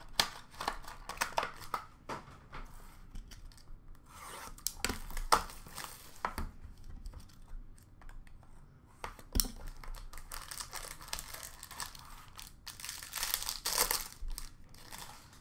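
Upper Deck Stature hockey card box and packs being opened by hand: wrapping tearing and crinkling, with cardboard and cards rubbing and tapping. The longer rustling stretches come about five seconds in and near the end.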